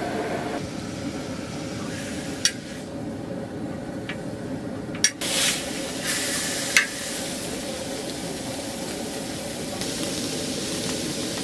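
Food sizzling and frying in a pan, a steady hiss broken by a few sharp clicks and knocks, the loudest about five and seven seconds in.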